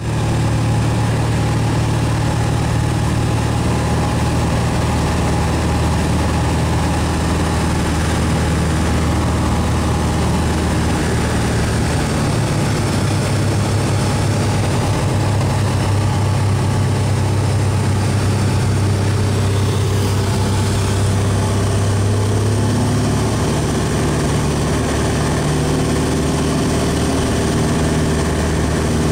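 Cessna 172's piston engine and propeller droning steadily, heard from inside the cabin during the landing approach. The engine note shifts in pitch twice, partway through and again later.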